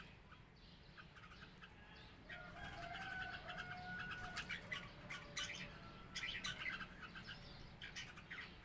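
Red-whiskered bulbuls calling: from about two seconds in, a run of quick chirps and chatter, with a few longer held whistled notes.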